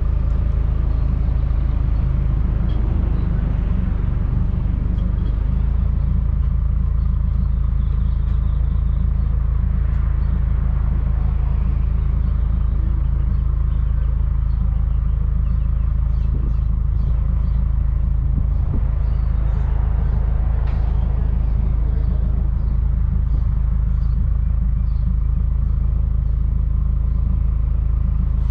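Subaru WRX turbocharged flat-four idling steadily through an ETS cat-back exhaust, heard right at the tailpipes as a constant low rumble.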